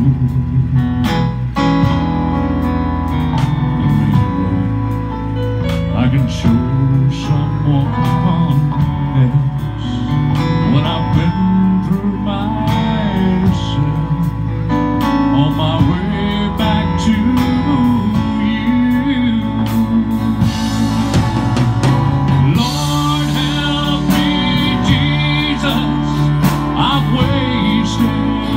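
Live country gospel band playing through a PA: acoustic guitar, keyboards, electric guitar and drums, with a man's lead vocal. Cymbals wash in for a couple of seconds about two-thirds of the way through.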